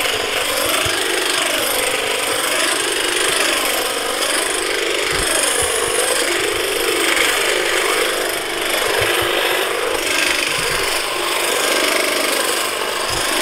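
Wild Badger 40-volt cordless hedge trimmer running, its reciprocating blades cutting Leyland cypress branches. Its pitch rises and falls over and over, roughly every second or so.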